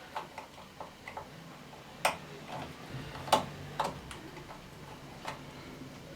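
Irregular sharp clicks and taps of a fuse box being worked on by hand as a fuse is pulled out, with about five louder clicks among fainter ones.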